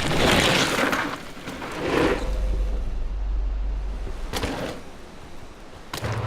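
Mountain bike riding fast: two rushes of tyre noise on dirt in the first two seconds, then a low rumble of the bike rolling, with a sharp click about four seconds in and another near the end.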